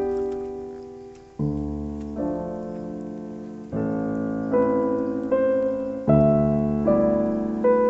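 Piano music, slow chords with a bass line, each struck and left to fade.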